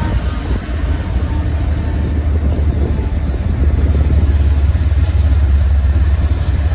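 Union Pacific manifest freight train passing with a heavy low rumble; the horn's last note dies away at the very start, and the rumble grows louder a little past halfway.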